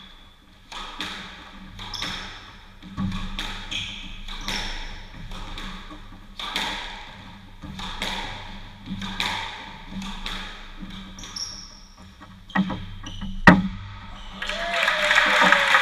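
Squash rally: the ball smacked by rackets and off the court walls about once a second, each hit ringing in the enclosed court. A loud final crack comes near the end, then clapping breaks out as the rally ends.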